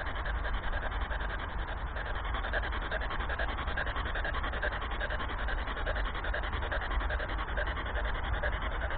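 Spirit box radio scanning through stations: a steady, rapidly chopping hiss of static, with no voices coming through.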